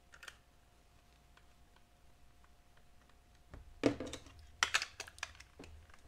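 Faint ticks of a small Phillips screwdriver driving screws into the plastic back of a bed remote control. From about three and a half seconds in come louder clicks and knocks as the plastic remote is handled and turned over.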